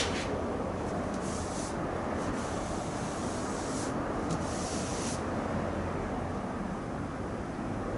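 Hand sanding of primer surfacer on car body panels: a few rubbing strokes of abrasive paper, about a second in and again around four to five seconds in, over a steady background rumble.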